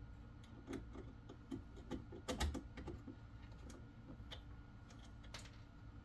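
Scattered small clicks and taps of hand tools and fingers working a stripped wire into a screw terminal block. The clicks come irregularly, with the loudest cluster about two and a half seconds in.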